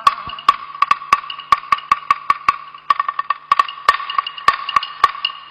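Chinese opera percussion playing an interlude: sharp, dry wooden strikes of a clapper drum and wooden clappers, about five a second in an uneven rhythm with quick pairs and short runs.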